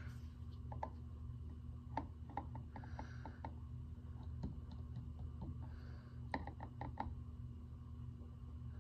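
Scattered light clicks and taps, in small clusters, over a steady low hum, with a soft breathy rustle a couple of times.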